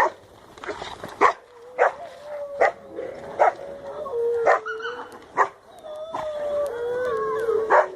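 Canines howling and barking: sharp barks about once a second. One long howl starts about two seconds in, and several more howls join it near the end.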